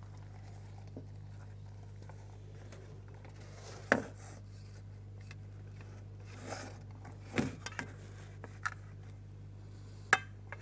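Metal cookware at the oven knocking and clanking: several separate sharp knocks, the loudest about four seconds in, over a steady low hum.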